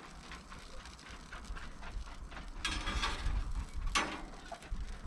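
Irregular clicks and scrapes of food being handled and turned on a cast-iron grill pan, with a couple of louder clacks near the middle and about four seconds in.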